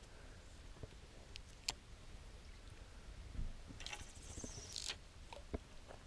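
Faint clicks and handling of a spinning reel and rod, with one sharper click a little under two seconds in and a brief rushing whir about four seconds in.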